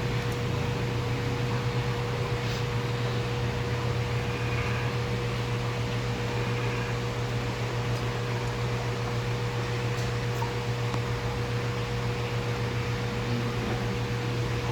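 Steady machine hum: a constant mid-pitched tone over a low drone, unchanging throughout.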